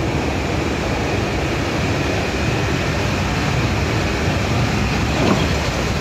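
Steady, even machine noise of industrial air-conditioning equipment running, with a low hum underneath.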